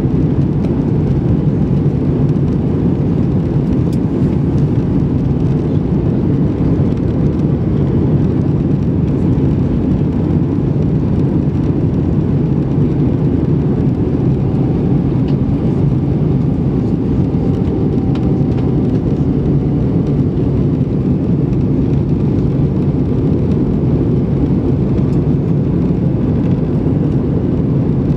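Steady low roar of jet engines and rushing air inside the cabin of an Airbus A320 in flight, with a faint higher whine briefly around the middle.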